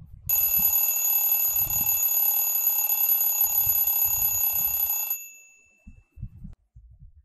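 Phone alarm ringing: a loud, steady electronic ring of several held high tones that cuts off suddenly about five seconds in, followed by a few soft thumps of movement on the bed.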